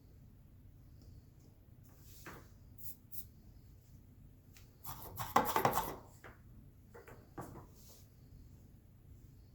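Handling sounds at a soldering bench: a few brief scrapes and taps of tools and the board, with one louder flurry of quick scraping clicks about five seconds in, over faint room tone.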